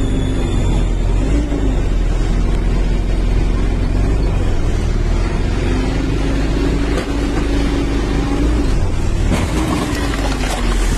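Road and engine noise inside a moving car's cabin: a steady low rumble with a droning hum that slowly wavers in pitch.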